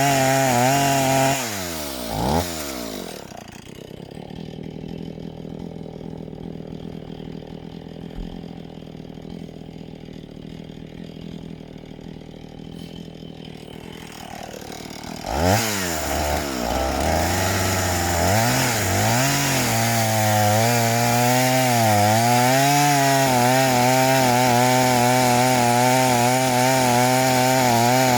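Two-stroke chainsaw at full throttle drops back to idle a couple of seconds in. After about twelve seconds of idling it is revved up again and cuts into a log, its pitch dipping as the chain bites, then holds steady at high revs.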